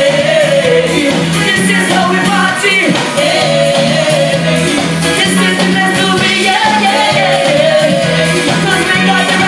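Live calypso band playing, with singing over a steady beat.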